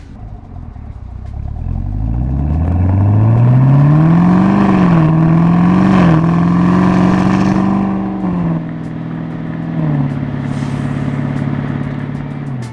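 2018 Chevrolet Camaro ZL1's supercharged V8 pulling away, its pitch climbing steadily for a few seconds and wavering briefly. It then holds, steps down twice and settles into a steady cruise.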